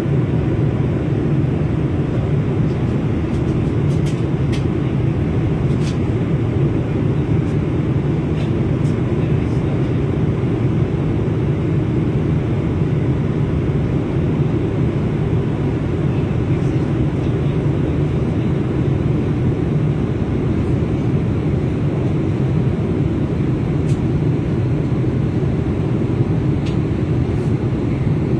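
Steady low roar of an airliner cabin in flight, with a few faint clicks.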